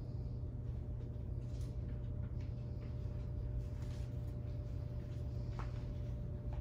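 Meeting-hall room tone: a steady low hum with a faint steady higher tone, and a few faint scattered clicks and rustles.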